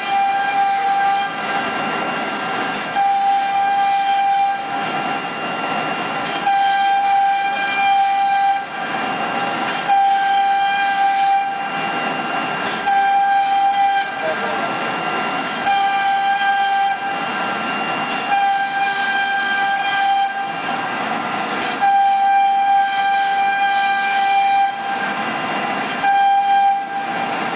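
CNC router spindle whining with a steady high pitch while its bit carves a wooden board. Every couple of seconds the clear whine gives way to a harsher rasping cutting noise, then returns.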